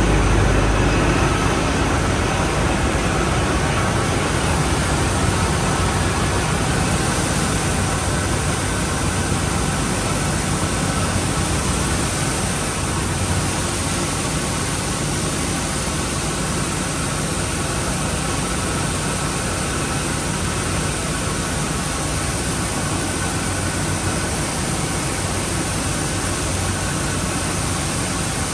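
Steady drone of industrial plant machinery at a power station's circulating cooling-water filters, a constant low hum under an even rushing hiss.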